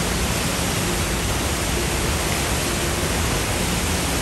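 Water pouring over a concrete spillway weir into churning white water below: a steady, unbroken rush.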